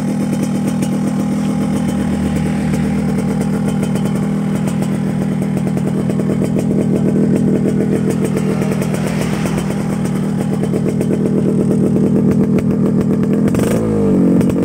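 Yamaha RX-King's two-stroke single-cylinder engine running steadily through a 'standar racing' aftermarket exhaust, with a brief shift in pitch near the end.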